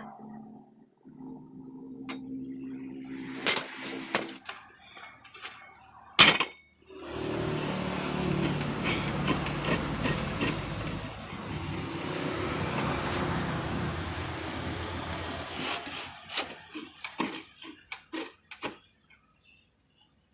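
Metal clinks and knocks, one sharp loud impact, then about nine seconds of steady arc welding crackle on pipe. It ends in a run of light taps and clinks.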